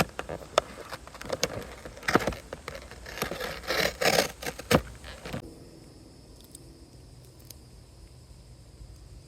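Small metal multitool being handled: a quick run of clicks and scrapes for about five seconds, then it drops abruptly to a quiet, steady background with a few faint ticks.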